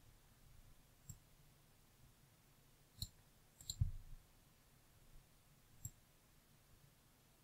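Faint computer mouse button clicks, a few isolated ones with a quick cluster a little under four seconds in.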